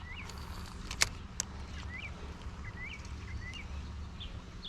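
Small birds chirping repeatedly in short rising calls over a steady low rumble, with two sharp clicks about a second in.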